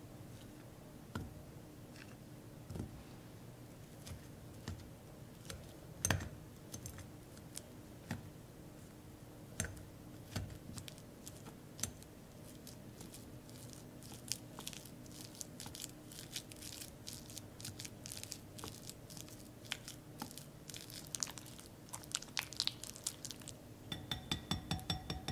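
A ripe banana being peeled, then mashed in a glass bowl with a silicone-coated whisk: soft tearing and scattered clicks at first, building to dense rapid clicking of the whisk against the glass. Near the end comes a quick run of taps that make the glass bowl ring.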